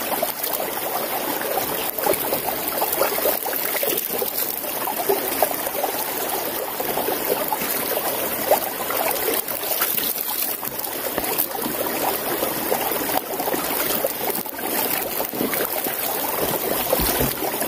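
Shallow creek water flowing and splashing over rocks, a steady hiss with fine crackling.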